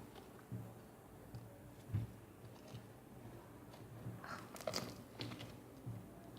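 Homemade glue slime being squeezed and stretched by hand, giving faint squishing and a few small crackles and pops, most of them about four to five seconds in.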